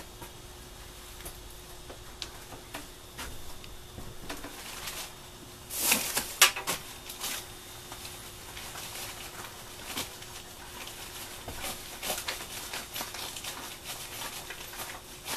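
A cloth rag rubbing and rustling against gloved hands, with scattered small clicks and knocks of handling. The loudest moment is a short scuffling burst with sharp clicks about six seconds in, over a faint steady hum.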